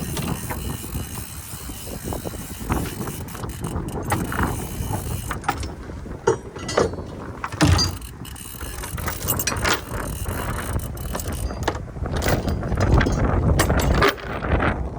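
Wind rumbling on the microphone, with scattered irregular clicks and knocks of handled gear, louder over the last few seconds.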